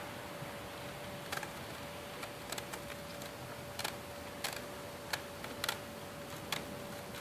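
Irregular sharp clicks and taps, a dozen or so at uneven spacing starting about a second in, over a steady hiss and a faint constant hum.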